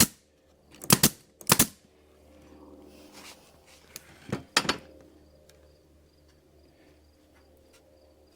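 Sharp knocks of wooden boards being handled and set down: one at the start, two more close together about a second in, and another pair a little past four seconds, then only faint ticks.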